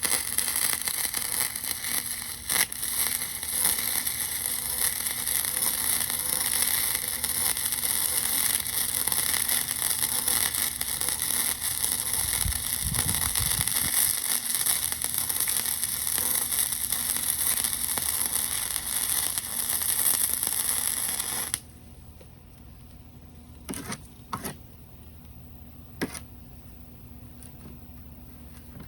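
Arc welding: the steady crackling hiss of a welding arc runs for about twenty seconds, then stops suddenly. A few light knocks follow.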